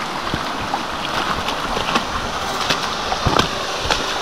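Steady rush of a small mountain stream cascading down a slope, broken by a few scattered knocks, the loudest a little over three seconds in.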